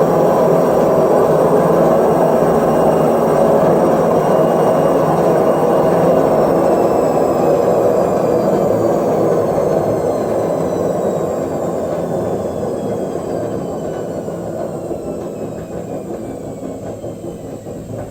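Front-load washing machine drum spinning with a loud rumble, the noise problem the machine has. From about six seconds in, thin high whines slowly fall in pitch and the rumble fades as the drum slows down.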